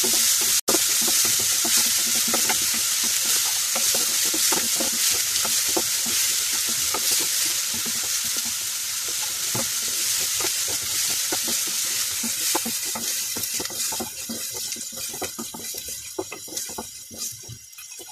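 Chopped onions sizzling in oil in a coated kadhai, sautéed until golden brown, while a wooden spatula scrapes and pushes them around the pan in quick repeated strokes. The sizzle fades away over the last few seconds.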